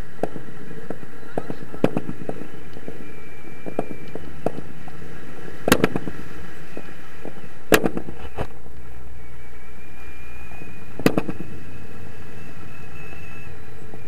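Steady rush of airflow over a camera microphone during a tandem paraglider flight, broken by a few sharp pops and knocks, three of them louder than the rest.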